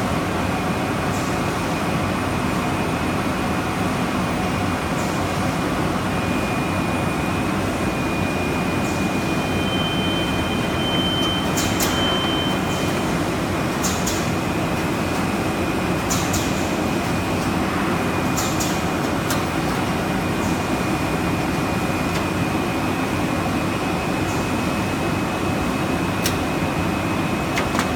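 Steady hum of rigid box making machinery and the factory floor, with a constant high whine and several short sharp clicks from the machine's mechanisms.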